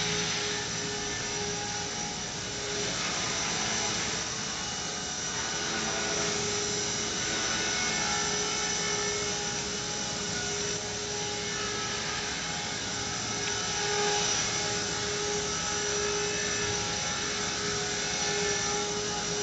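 Walkera V120D02 micro RC helicopter in flight: its electric motors and spinning rotor blades make a steady whine over a whirring hum, the pitch wavering slightly as it manoeuvres.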